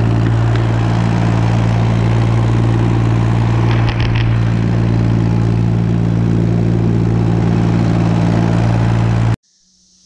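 International Harvester tractor engine running steadily at working speed while mowing hay. It cuts off suddenly near the end.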